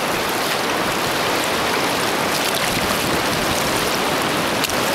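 Steady rush of surf washing over shallow water.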